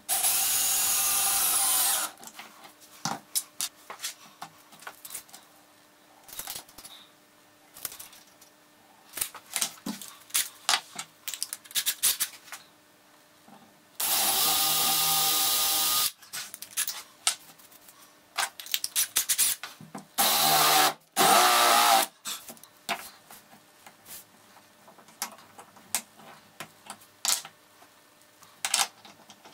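Cordless drill/driver running in bursts. It runs about two seconds at the start while driving a hanger bolt into a wooden cylinder, then about two seconds roughly halfway through while drilling into melamine-faced chipboard, with two shorter runs a few seconds later. Between the runs there are short clicks and knocks from handling the tool and parts.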